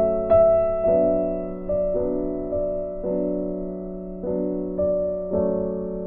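Background music: a slow piano piece, notes and chords struck about twice a second and left to ring and fade.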